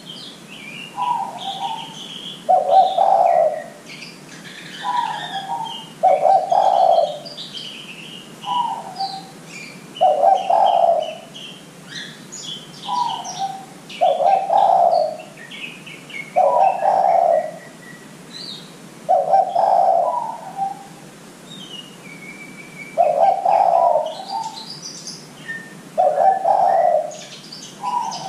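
Spotted dove (derkuku) cooing over and over, in paired phrases every few seconds: a shorter, higher note and then a louder, lower coo. Small birds chirp faintly in the background.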